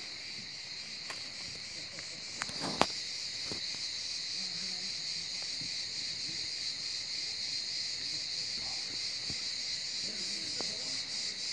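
A steady, high-pitched chorus of insects, unbroken throughout. A sharp click stands out near the three-second mark, the loudest moment.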